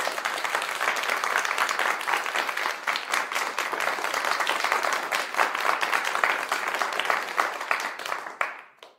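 Applause: many people clapping together, dying away near the end.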